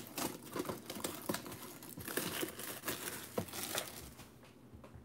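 Plastic wrapping on a cardboard trading-card box crinkling as it is torn open and crumpled by hand, in a run of quick irregular crackles.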